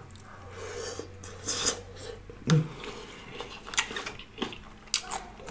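Close-miked chewing of a mouthful of crisp lettuce salad: irregular crunches and wet mouth clicks, with a brief hum about two and a half seconds in.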